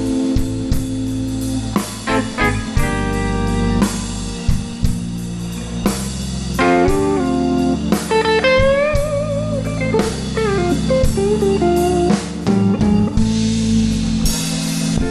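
Live blues band playing an instrumental intro: electric guitar lead lines over bass and drum kit, with bent notes held and shaken in vibrato about halfway through.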